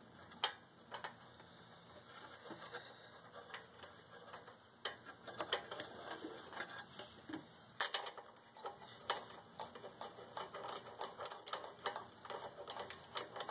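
Faint, irregular small metallic clicks and ticks as a spark plug is threaded by hand into an engine's cylinder head and a spark plug socket on an extension is fitted over it and turned. The clicking grows quicker and busier in the second half.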